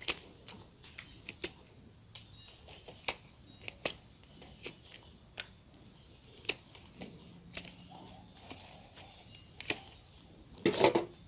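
Knife cutting through the dense, fibrous root ball of a bird's nest fern: irregular crunching and snapping clicks of roots and packed soil. A louder burst near the end as the clump is pulled apart by hand.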